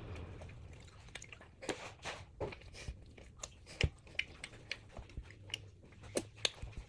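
A person eating close to the microphone: chewing with many short, irregular mouth clicks and smacks.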